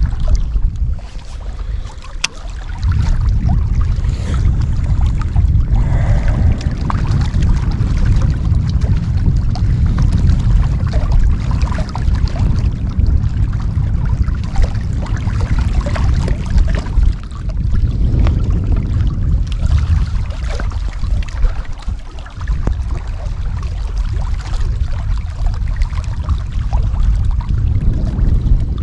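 Wind buffeting the microphone in a loud, steady low rumble, with small waves lapping against shoreline rocks.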